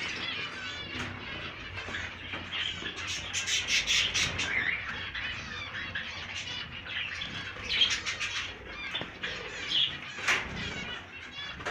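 A crowd of caged finches chirping and calling over one another, with fluttering wings, busiest a few seconds in.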